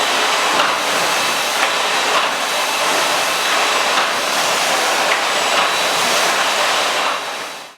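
Miele Classic C1 canister vacuum cleaner running steadily on a carpet, a loud hissing rush of suction with small regular swells; it fades out near the end.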